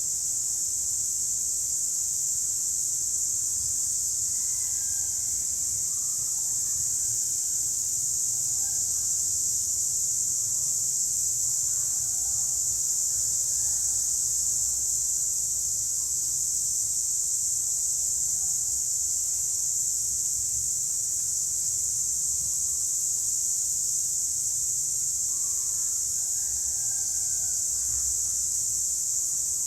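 Chorus of many cicadas giving a steady, high-pitched drone that holds at a constant level, with faint short chirps scattered through it.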